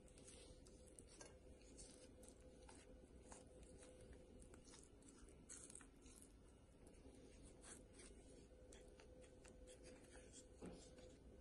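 Very faint, soft strokes and light ticks of a pastry brush dabbing oil onto a raw netted turkey breast on a plate, over a faint steady hum; near silence otherwise.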